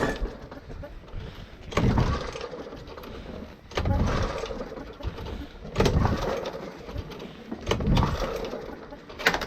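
Petrol lawn mower's recoil starter being pulled about every two seconds, the engine turning over briefly with each pull but not catching; the mower has stood outside all winter and will not start.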